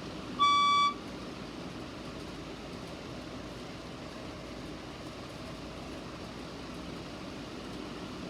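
Fire alarm speaker sounding one last high, electronic beep about half a second in; it closes a group of three evenly spaced beeps, the temporal-three evacuation pattern. The tone then stops for good, leaving only a steady background hum.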